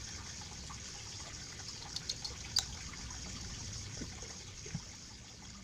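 Steady hiss with a few small sharp clicks of a screwdriver and screws being worked on a DSLR camera body, the loudest about two and a half seconds in; the hiss fades away near the end.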